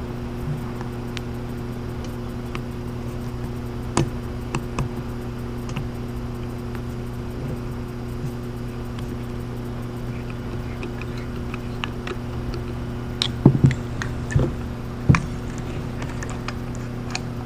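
Small clicks and taps of small metal parts and tools being handled, with a few louder knocks about 13 to 15 seconds in, over a steady low hum.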